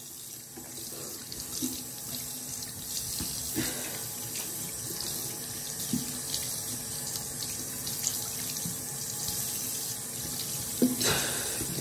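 Bathroom faucet running steadily into a sink, with a few brief splashes as water is cupped onto a face to rinse off soap lather.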